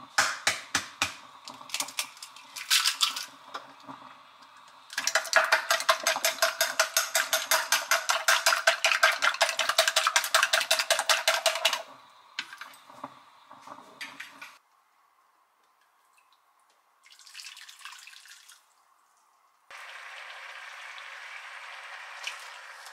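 An egg being cracked into a small stainless steel bowl with sharp taps, then chopsticks beating it against the bowl in a fast, even clatter of about five or six strokes a second for some seven seconds. Near the end, water bubbling in a frying pan on an electric hob with a steady hiss.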